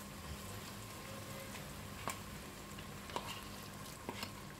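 Coconut milk bubbling and sizzling in a frying pan, with a few light clicks as seasoned baby fish are scraped from a bowl into it, about two, three and four seconds in.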